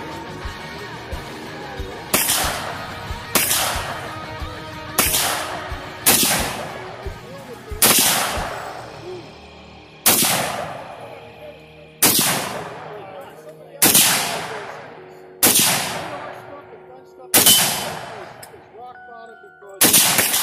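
Eleven single rifle shots from a scoped semi-automatic rifle, fired about one to two seconds apart, each a sharp crack rolling off in a long echo.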